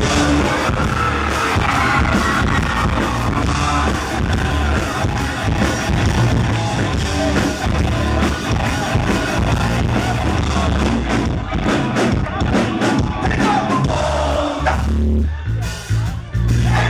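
Loud live rock band playing through a club PA, with heavy bass and drums under a singer's vocals, heard from among the crowd.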